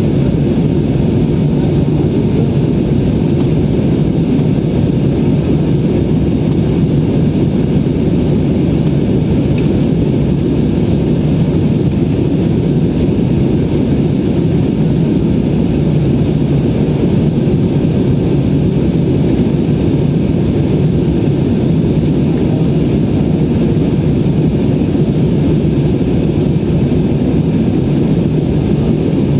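Steady, loud drone of an aeroplane's cabin noise in flight: engine and airflow noise heard from inside the passenger cabin, low and unchanging.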